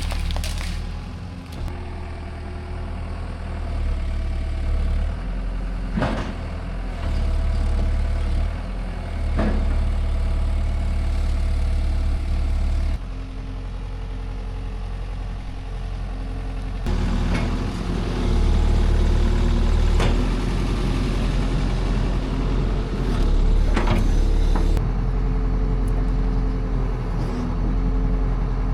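Diesel engine of an excavator running steadily, its note shifting abruptly a few times, with several sharp knocks along the way.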